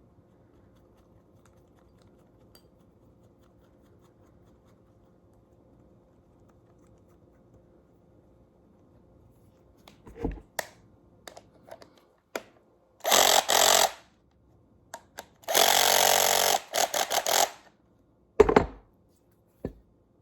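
A handheld power tool run in two short bursts, the first about a second long, the second about two seconds with a few brief stops. Scattered knocks come before them and a single sharp clunk after.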